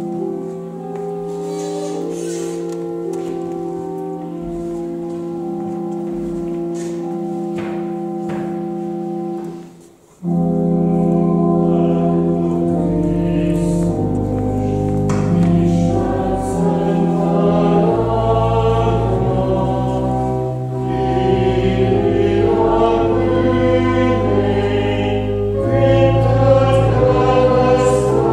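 Church organ playing slow held chords. After a brief break about ten seconds in, it comes back fuller with deep pedal bass, and voices join in singing a hymn to it.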